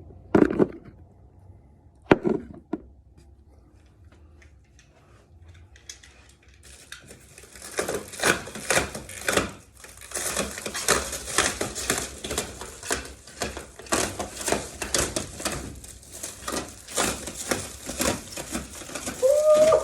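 Two sharp knocks, then, from about a third of the way in, plastic packaging wrap being pulled and crumpled off a vending machine, with continuous irregular crinkling and crackling.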